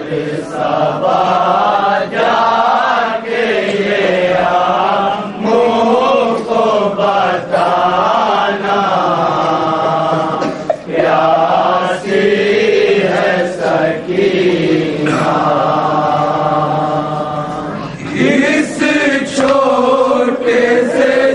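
Men's voices chanting an Urdu nauha, a Shia mourning lament, led by a voice sung through a microphone. It moves in long lines that rise and fall in pitch, with short breaks between phrases.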